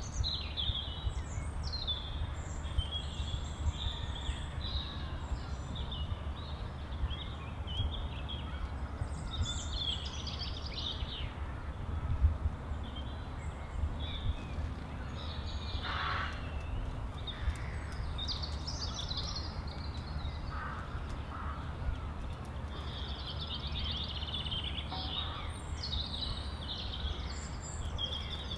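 Songbirds chirping and singing in the trees in scattered bursts of high, quick notes, with one harsher, lower call about sixteen seconds in, over a steady low rumble.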